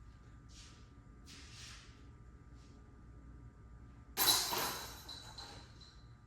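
Disc golf putter striking the chains of a disc golf basket about four seconds in, the chains jangling and ringing, then dying away over a second or so.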